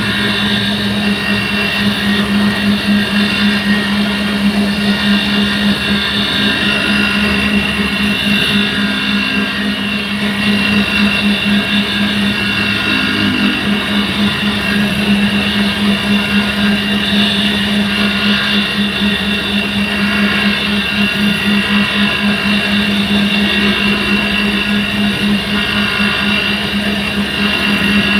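Camshaft copy-grinding machine running steadily while re-profiling a Honda Vario camshaft, a constant motor hum with a fast, even pulse.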